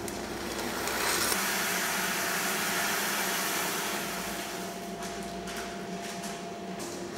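Granules pouring from a plastic bag into a stainless-steel mixing vessel, a rushing rustle that fades after a few seconds, with a few light clicks after it. A steady electric machine hum runs underneath.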